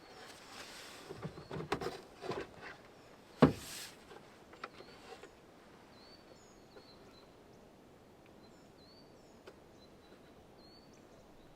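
A few knocks and rustles, with one sharp knock about three and a half seconds in, then small birds chirping faintly in short high calls.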